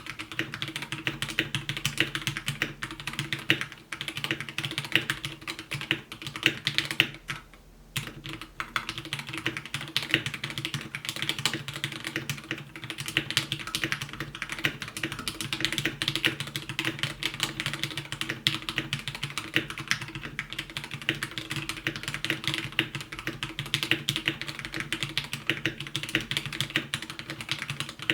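Continuous fast typing on a KPRepublic BM65, a 65% hot-swap mechanical keyboard, with dense key clicks and a brief pause about eight seconds in.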